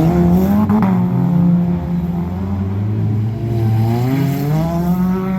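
Off-road derby cars' engines revving, their pitch climbing and dropping as they accelerate and lift off, with a sharp rise about half a second in and another around four seconds.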